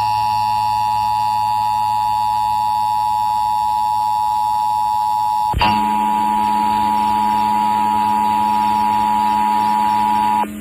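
Emergency Alert System attention signal: the steady two-tone alert (853 and 960 Hz together) broadcast over FM radio. There is a brief click about five and a half seconds in, where the tone breaks and resumes, and it stops just before the end.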